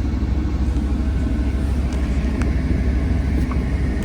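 Kobelco SK210LC-10 excavator's diesel engine running steadily, heard as an even low rumble from inside the closed cab.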